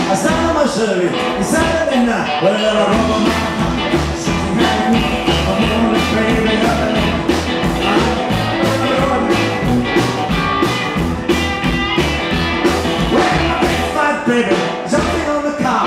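A live rockabilly band playing a driving rock and roll number on upright double bass, acoustic guitar, hollow-body electric guitar and drums, with a steady beat.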